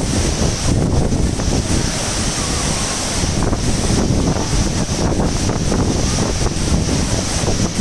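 Steady rush of falling water from a waterfall, with wind buffeting the microphone.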